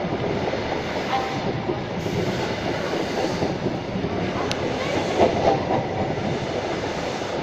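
HST (InterCity 125) coaches rolling into the station, a steady rumble of wheels on rails with some clickety-clack. A couple of short, faint squeals around one second and five seconds in.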